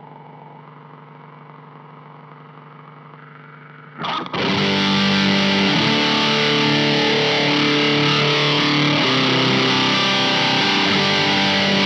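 Electric guitar played through the Intensive Care Audio Vena Cava Filter, a distortion and modulated-filter pedal. A quiet steady low tone for about four seconds, then loud distorted held notes and chords.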